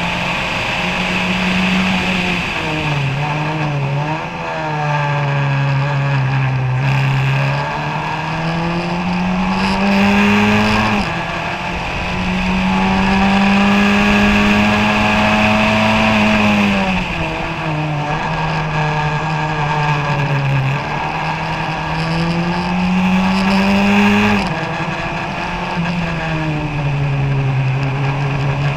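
The four-cylinder Ford Kent 1600 engine of a 1991 Kookaburra Formula Ford, heard from the cockpit at racing speed. The revs climb and fall as the car accelerates and slows for corners. There are sudden drops at two upshifts, about eleven and twenty-four seconds in, and the pitch wavers briefly about three seconds in.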